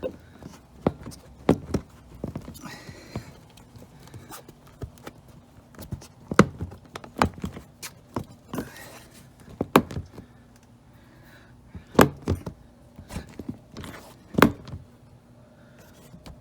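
Plastic fog light shroud on a 2019 Honda CR-V bumper being pushed and knocked into place: a series of irregular sharp plastic knocks and clicks, the loudest around the middle and near the end, as its tabs are worked in.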